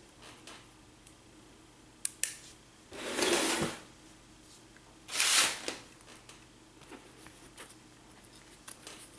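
Handling of a cardboard comic mailer and a folding knife: a sharp click about two seconds in, then two short rustling, scraping sounds of the cardboard being moved, with a few light clicks and taps.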